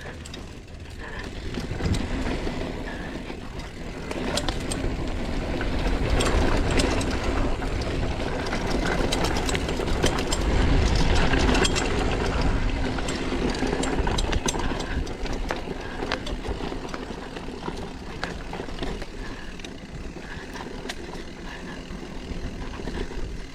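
A mountain bike riding down a dirt trail: wind rushing over the microphone, tyres rolling on dirt and many small rattles and knocks over bumps. It is loudest and rumbles most around the middle.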